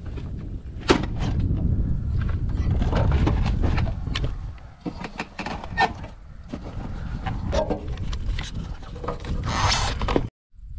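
Handling sounds of an RV water heater being worked loose from the trailer wall: a run of clicks, knocks and scrapes against its metal housing over a low rumble in the first few seconds, and a brief scraping rush near the end.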